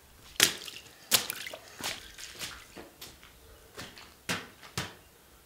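Footsteps on hard, gritty ground and tiles: a steady series of about eight sharp steps, roughly one every two-thirds of a second, the first two the loudest.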